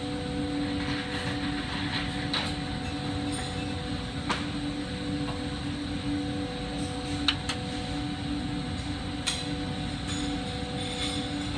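Steady running noise of a glassblowing hot shop: a constant rumbling hiss from the bench torch and ventilation, with a low hum, broken by a few sharp clicks of glass on glass or tools.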